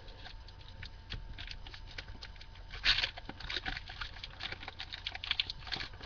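Foil booster pack wrapper of Magic: The Gathering cards being torn open and crinkled by hand, a run of small crackles with a louder rustle about three seconds in.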